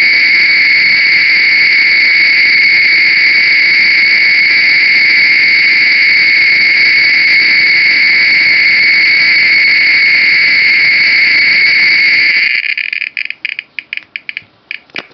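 Analog Geiger counter's speaker clicking so fast that the clicks merge into a loud, steady buzzing hiss, the sign of a strongly radioactive torbernite uranium mineral specimen. About twelve seconds in it drops abruptly to separate, irregular clicks.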